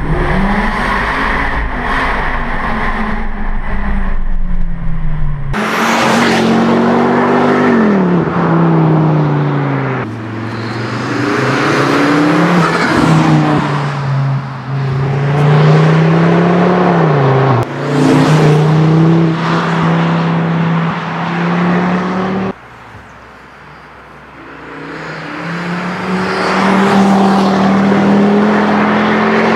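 Tuned Volvo V40 T5 accelerating hard, its engine and exhaust note climbing through the revs and dropping sharply at each upshift, several times over. It is first heard inside the cabin with a heavy low boom, then from the roadside. Near the end, after a brief quieter moment, the car is heard approaching with its engine note rising.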